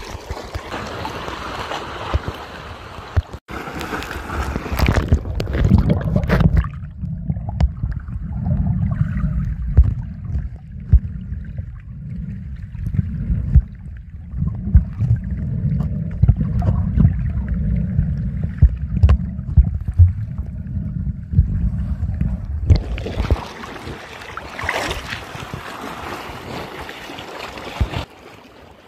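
Water splashing and sloshing at the surface, then a muffled low rumble with soft thumps while the camera is held underwater for about sixteen seconds, then surface splashing again near the end.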